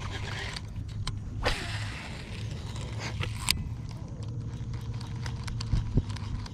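A fishing cast: line rushes off a spinning reel spool for about two seconds and stops abruptly. The reel is then cranked, a faint steady whir with small ticks, as the topwater bait is retrieved.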